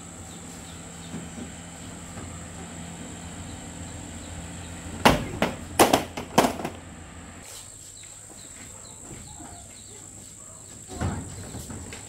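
Steady insect drone, with a quick run of about five sharp knocks between five and six and a half seconds in and one more knock about a second before the end. A low hum underneath stops about seven and a half seconds in.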